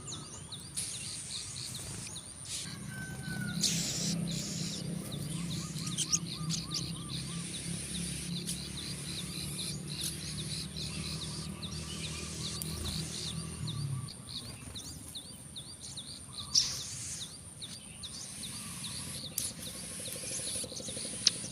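Plain prinias (ciblek sawah) calling: rapid series of high, repeated chirps, with scattered clicks. A low steady hum runs underneath for most of the first two-thirds.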